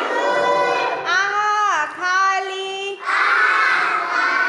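A group of young children singing a rhyme together in a sing-song chant, in phrases of about a second with long held notes, one falling away in pitch at its end.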